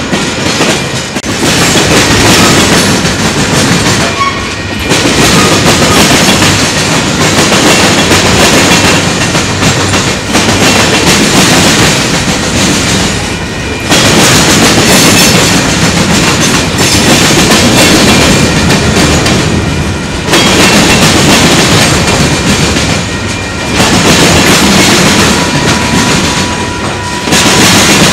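Freight train tank cars and covered hoppers rolling past close by, steel wheels clicking over the rail joints of the crossing diamonds. The noise dips briefly every few seconds as the gaps between cars pass.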